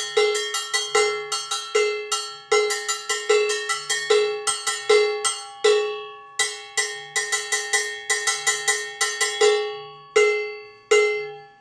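Handcrafted low-pitch contracampana, a bongo cowbell on a mount, struck with a drumstick in a repeating rhythmic pattern. Each stroke gives a bright metallic clang of one steady pitch with ringing overtones, and a few strokes are left to ring out longer. The playing stops shortly before the end.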